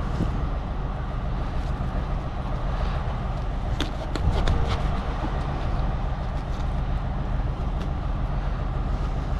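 Truck engine idling steadily, with a few light clicks and knocks about four seconds in.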